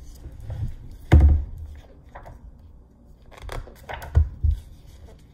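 A hardcover picture book being handled: it is opened and laid on a wooden tabletop, with pages rustling. Several dull knocks of the book on the table; the loudest comes about a second in, and a few smaller ones follow near the end.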